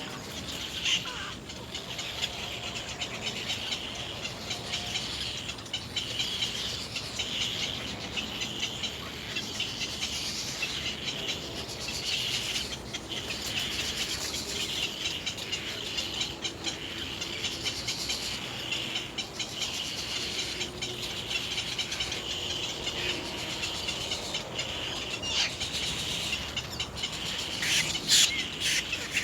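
Bird calls over a steady high-pitched buzzing chorus that swells and fades, with a few sharper sounds near the end.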